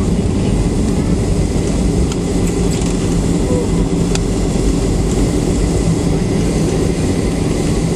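Steady jet engine noise and rumble heard inside the cabin of a Southwest Airlines Boeing 737 rolling down the runway after touchdown.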